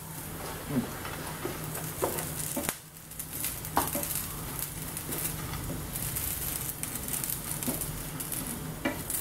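Oil sizzling steadily in a non-stick frying pan as fried dried anchovies are tipped in and stirred through fried onions with a wooden spatula. The spatula scrapes and knocks against the pan several times.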